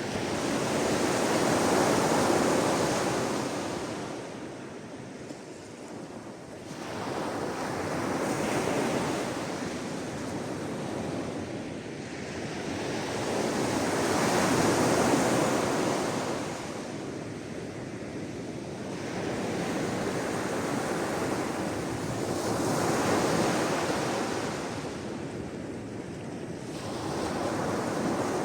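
Sea waves washing in on the shore, the rush of water swelling and fading away about every five seconds.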